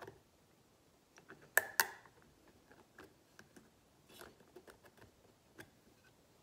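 Snap-ring pliers working a steel snap ring onto an LS rocker arm's trunnion: a run of light metal clicks and ticks, with two sharp clicks close together a little before two seconds in.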